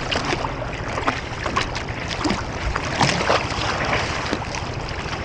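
Sea water splashing and sloshing around a surfboard on the open sea, with many small irregular splashes and wind on the microphone.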